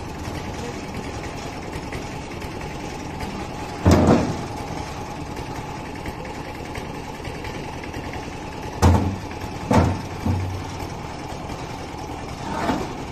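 An engine idles steadily while heavy stones are dropped one by one onto the metal bed of a small farm vehicle, each landing with a loud thud. The thuds come about four seconds in, twice close together around nine to ten seconds in, and again near the end.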